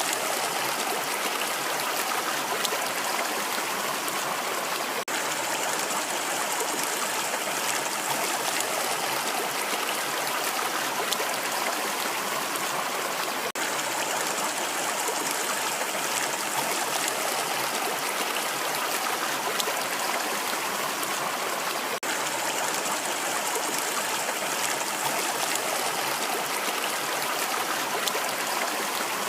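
Rushing water running steadily, an even hiss with little low rumble, dipping for an instant three times.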